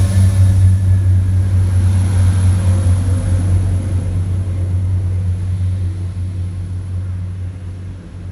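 Diesel multiple unit's underfloor engines droning steadily as the train pulls out past the platform, slowly fading as it draws away.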